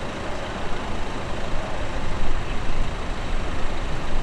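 Boeing 747-8F's four GEnx-2B turbofan engines running at taxi idle: a steady rumble and hiss.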